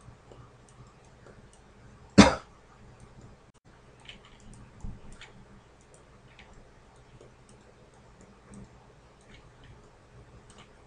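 Faint, scattered computer mouse clicks with light room noise. About two seconds in there is a single short, loud burst of noise.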